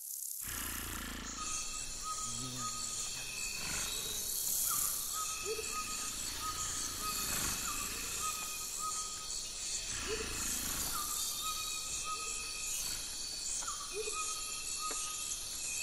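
Sound-designed alien forest ambience cutting in from silence: a steady high insect-like chirring, with short creature chirps and calls repeating about every two to three seconds.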